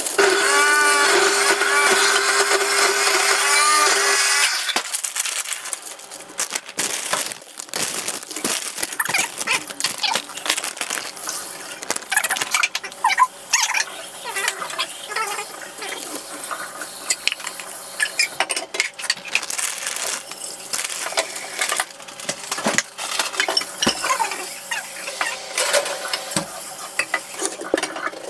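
A loud steady hum with a warbling whine over it for about the first four seconds, which stops suddenly. Then comes a long run of light crinkling, crackling and clicking as corn chips are handled in a glass baking dish and grated cheese is scattered over them. Near the end a knife taps on a wooden board while slicing a red onion.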